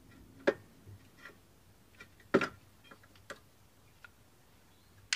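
Metal-on-metal clinks of a pry bar working the rear brake pads out of a disc brake's caliper carrier: two sharp knocks about two seconds apart, with lighter ticks between and after.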